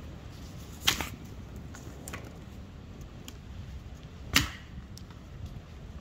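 Dead branches snapping as they are broken by hand for firewood: two sharp cracks, about a second in and again three and a half seconds later, with a few lighter crackles of twigs between them.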